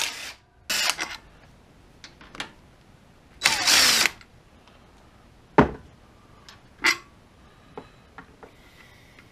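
DeWalt cordless impact driver with a 10 mm socket running in two short bursts, one about a second in and a longer one around three and a half seconds in, backing bolts out of an engine side cover. A few sharp clicks follow later.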